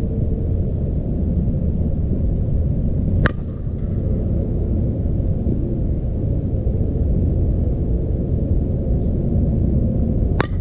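Steady low rumble with two sharp cracks, one about three seconds in and one near the end; the last is a softball bat striking a pitched ball as the batter swings.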